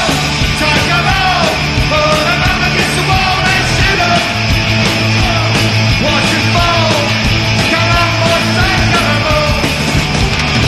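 Live punk rock band playing loud: distorted electric guitars, bass and drums, with shouted vocals.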